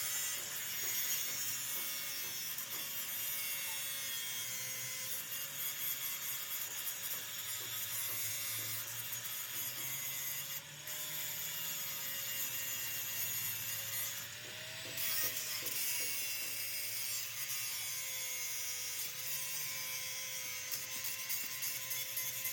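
A machine running with a steady hum that wavers slightly in pitch, over a dense rasping, scraping noise of metal being worked.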